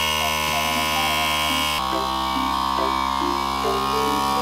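Electric-hydraulic cab-tilt pump on a heavy truck running steadily as it raises the cab, a motor hum whose tone drops a little about two seconds in.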